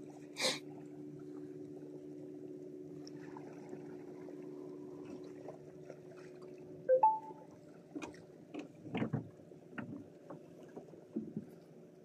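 Steady low hum of a boat engine that fades out about seven seconds in, with a sharp click near the start. A short rising squeak follows, then a run of knocks and low bumps from the angler's gear moving in a small boat.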